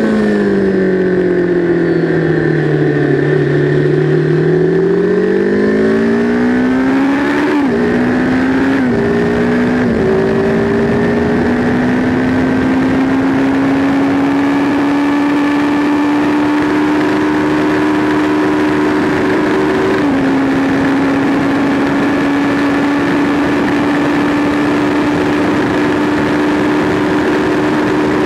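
Sport motorcycle's engine heard from onboard at speed, with a rush of wind noise. The engine note falls over the first few seconds as the bike slows, then climbs under acceleration. There are three quick upshifts about 7 to 10 seconds in, then it holds a steady high note down the straight.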